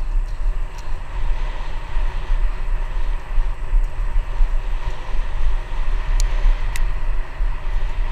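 Wind buffeting the action camera's microphone over the rumble of a road bicycle's tyres rolling on cracked, rough pavement. Near the end come two sharp clicks about half a second apart.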